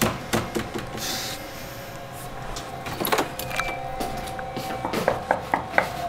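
A steady humming drone under scattered sharp clicks and knocks, with a quick run of clicks near the end.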